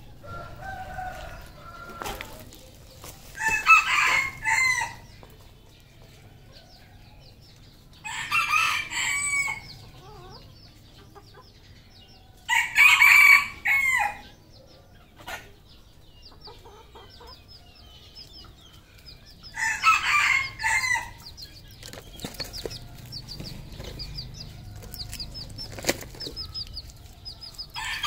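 Red junglefowl roosters crowing: four short crows a few seconds apart, with faint high chirping between them.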